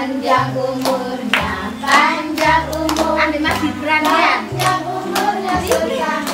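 Children clapping in time, about twice a second, to a birthday song with a steady bass beat and children's voices singing along.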